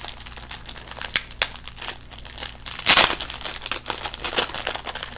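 Plastic cigar packaging crinkling and crackling as it is opened and a cigar is pulled out, with a louder burst of crackling about three seconds in.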